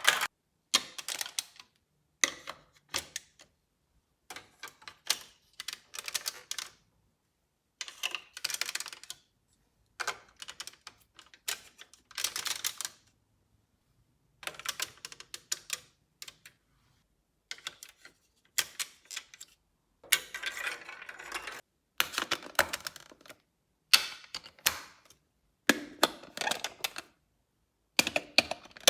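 Balls rolling and clattering through plastic LEGO Duplo marble run pieces, heard as rapid clicking and rattling. The sound comes in about a dozen short runs of one to two seconds each, separated by sudden silences.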